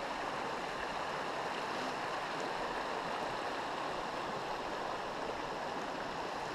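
Rocky mountain stream flowing, a steady wash of water.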